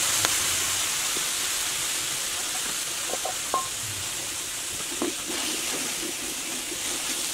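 Chopped vegetables hissing and sizzling as they steam in a hot skillet with a little water. The hiss eases slightly as it goes on, with a few light knocks.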